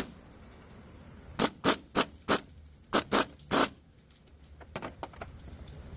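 A quick series of seven sharp knocks, in two groups, followed by a few fainter ticks.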